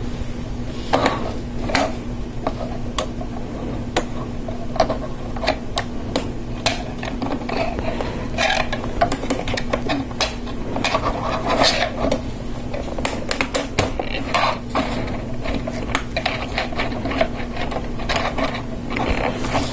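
Hard plastic LEGO Technic parts clicking and knocking as they are handled and pressed together, pins and axles pushed into beams, in irregular clicks throughout. A steady low hum runs underneath.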